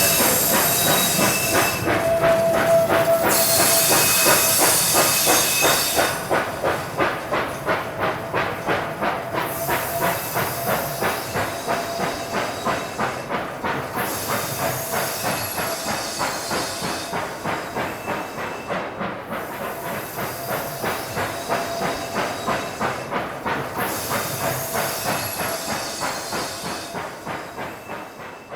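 Steam locomotive working hard up a grade at walking pace, its exhaust beating about twice a second, with bursts of steam hiss that come and go and a thin squeal at times. The beats fade away near the end.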